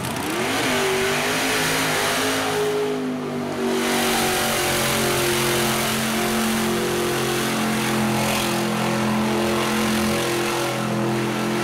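Mud truck's engine revving up quickly about half a second in, then held at high, nearly steady revs as it drives through a deep mud bog.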